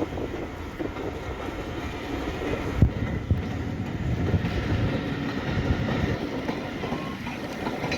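Steam-hauled train passing, its wheels rumbling steadily on the rails with a few sharp knocks, the loudest about three seconds in.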